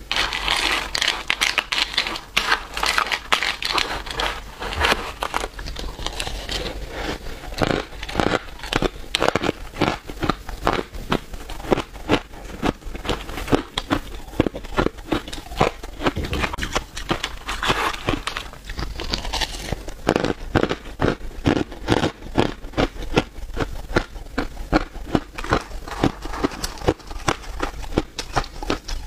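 Close-miked crunching of crushed ice and small ice cubes being bitten and chewed: a rapid, dense crackle of crunches without pause, with a plastic spoon scraping through the crushed ice in the bowl.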